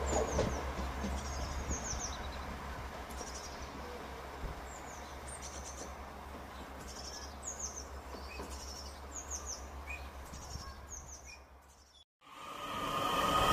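Small birds chirping over and over in short falling chirps, over the fading rumble of an Irish Rail 22000 Class diesel railcar moving away. Near the end the sound cuts out briefly and another train's noise swells in.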